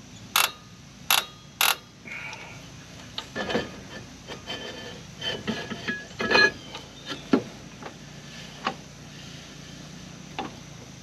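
Jeep Wrangler TJ rear drum brake being adjusted: three sharp clicks in the first two seconds as the star adjuster wheel is turned a few notches to spread the shoes. The rusty brake drum is then slid back over the shoes and worked by hand, with scattered metal knocks and scrapes, to test whether the shoes drag.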